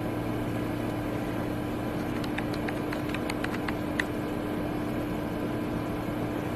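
A steady mechanical hum, with a few faint ticks between about two and four seconds in.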